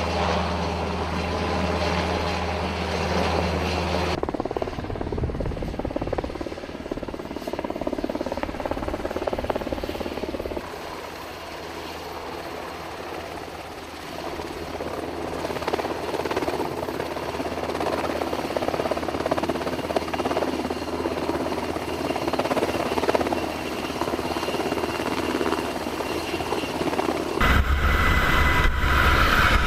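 MH-60S Seahawk helicopter running, a steady low rotor drone over the noise of its twin turboshaft engines. Near the end it gets louder, with a higher whine, as heard from inside the helicopter's cabin.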